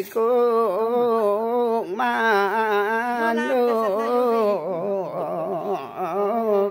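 A single voice singing unaccompanied in long held notes with a slowly wavering pitch, breaking briefly about two seconds in and again near five seconds.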